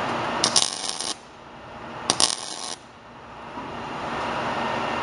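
MIG welder laying short tack welds on steel tubing: two bursts of arc crackle, each under a second long, the first about half a second in and the second about two seconds in. A steady hiss grows louder between them.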